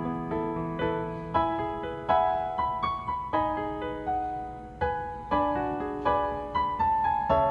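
Background piano music: a melody of struck notes and chords, each ringing and fading.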